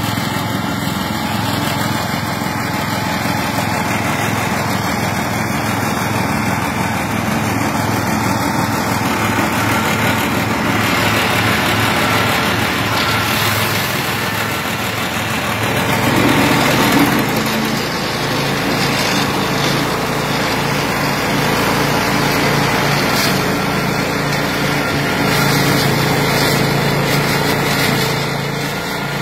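Engine of a flail-shaft grass mower running steadily under load, with a louder swell about sixteen seconds in, after which its note shifts lower.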